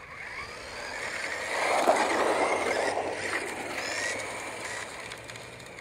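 Several RC cars speeding off at the start of a race: motors whining and tyres hissing, loudest about two seconds in, then fading as the cars pull away.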